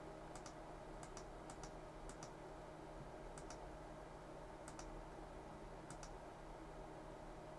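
Faint clicks of bench test equipment controls being stepped to raise the load current to 3.8 amperes: about a dozen clicks, mostly in close pairs, at irregular intervals over a low steady hum.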